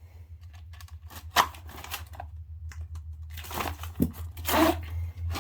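Fireworks kit packaging crinkling and rustling in a few short bursts as a fiberglass mortar tube is pulled out, with a sharp click about four seconds in.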